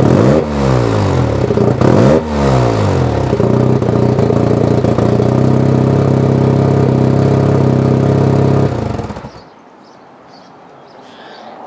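1986 Mazda RX-7 FC's 13B rotary engine heard at its aftermarket exhaust tip: two quick throttle blips about two seconds apart, then a steady idle. The engine falls silent about nine seconds in.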